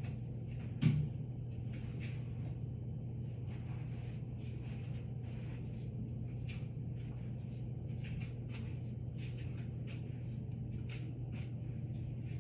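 Small clicks and taps of things being handled and set down, with one louder thump about a second in, over a steady low hum.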